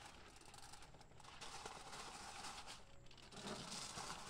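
Faint crinkling and rustling of a plastic salt packet and aluminium foil, with coarse salt being shaken over a rack of ribs.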